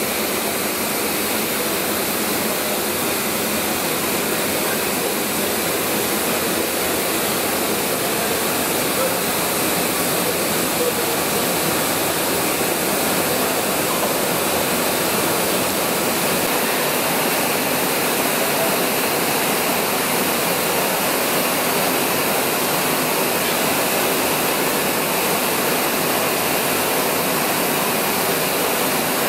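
Steady, even hiss of blowlamps burning on the cylinder heads of a 1925 Gardner 4T5 gas-oil engine, heating them before the engine is started. No engine beat is heard.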